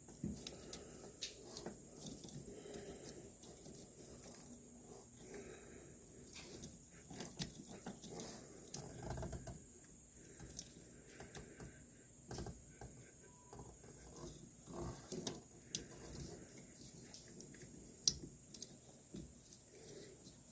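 Faint scattered clicks, taps and rustles of hands working on a wiring harness, handling wires and small tools, with two sharper clicks in the second half.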